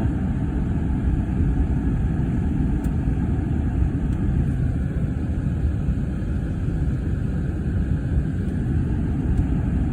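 Steady low road and engine noise heard from inside a moving car.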